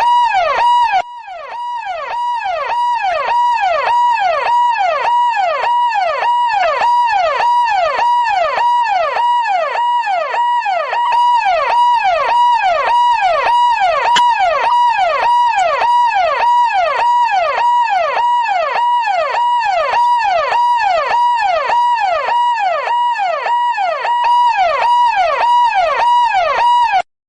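Police car siren on a fast yelp, its pitch sweeping up and down about twice a second. It dips briefly about a second in and cuts off suddenly near the end.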